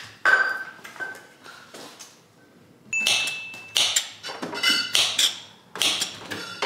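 Kitchen knife slicing strawberries on a wooden cutting board: irregular knocks of the blade against the board, with a few ringing clinks of kitchenware among them.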